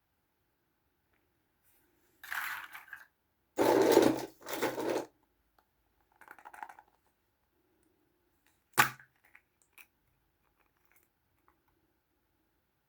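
Small plastic toys and their packaging being handled: several rustling, crinkling bursts, then a single sharp plastic click about nine seconds in and a few light ticks.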